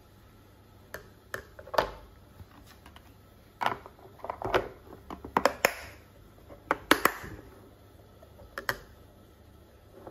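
A lid being fitted onto a stainless steel food container and its plastic clip latches snapped shut. The result is a scattered run of sharp clicks and clacks, densest in the middle.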